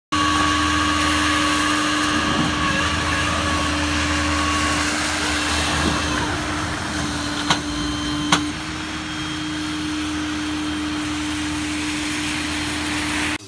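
A machine running with a steady whir and a constant hum, with two sharp clicks a little under a second apart about seven and a half seconds in.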